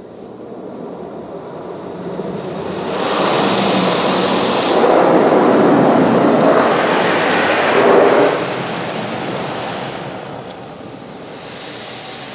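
Car wash water jets spraying and drumming on the car's roof and windows, heard from inside the car. The rush builds from about two seconds in, is loudest for about five seconds, then drops away sharply just after eight seconds.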